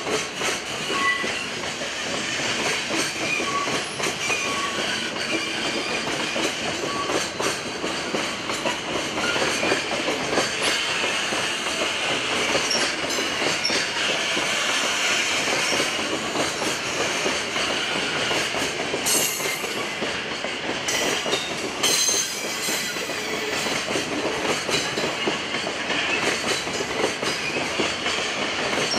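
Container wagons of a departing freight train rolling past, their wheels clattering steadily over the rail joints. Brief high-pitched wheel squeals come in about two-thirds of the way through.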